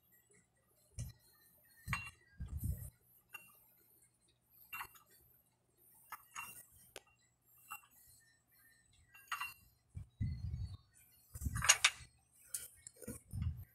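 Chrome plates on a plate-loaded dumbbell clinking against each other as it is curled, with sharp clinks at irregular intervals of about a second and a few dull low thumps among them. The loudest clink comes near the end.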